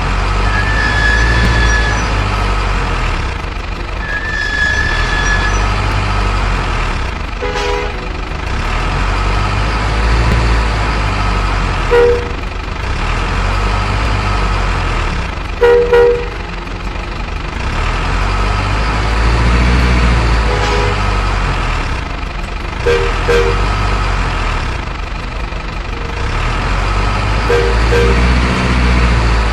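Truck engine running with a low, swelling rumble, punctuated about five times by short two-tone horn honks, plus a few brief higher beeps.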